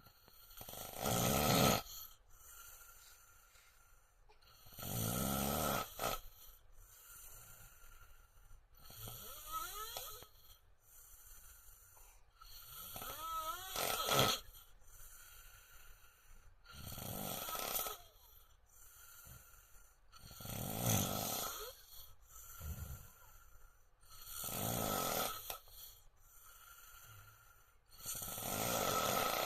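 An adult man snoring loudly, one heavy snore about every four seconds. Two of the snores, near the middle, carry a squeaky tone that rises in pitch.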